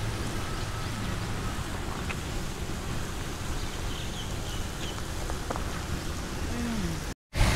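Steady hiss and splatter of hot-spring geysers spraying water. The sound cuts out briefly near the end.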